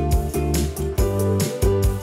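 Background music: an instrumental track with a steady beat.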